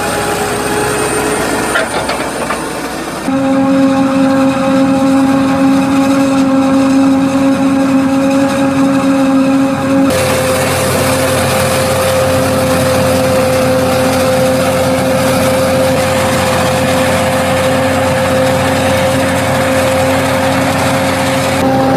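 Heavy farm machinery running. First a Claas Axion 830 tractor is heard pushing maize silage on the clamp. After a cut about three seconds in, a New Holland FR700 self-propelled forage harvester chops corn, running steadily with a constant high whine.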